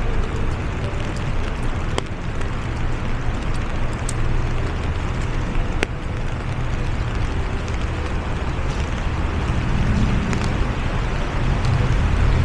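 Rain falling on an umbrella, with a few sharper taps of single drops, over a steady low rumble of city traffic.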